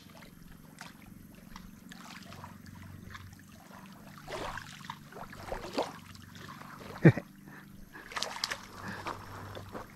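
Faint lake water splashing and lapping at the shore, with scattered small rustles from handling the fishing rod and line, and one short, sharp, louder sound about seven seconds in.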